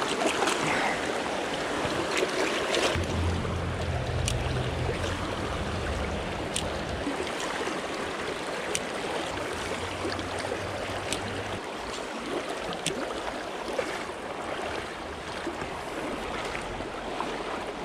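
Trout-stream riffles running steadily, a constant rush of flowing shallow water with a few small splashes. A low rumble joins for several seconds in the middle.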